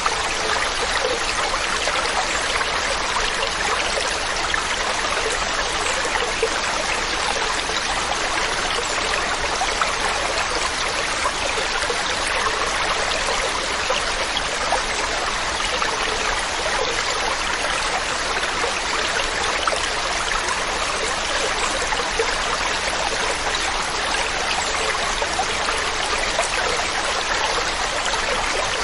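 Waterfall: a steady, unbroken rush of falling and splashing water, mostly high and hissy with little low rumble.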